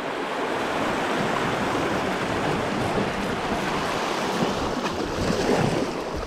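Sea surf washing and swirling over rocks at the water's edge: a steady rush of water.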